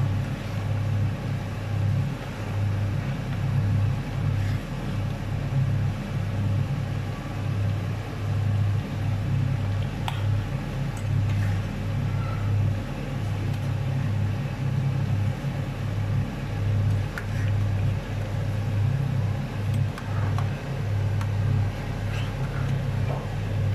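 A steady low rumbling hum with a wavering level, over a faint sizzle of carrots and gizzard frying in plenty of hot oil.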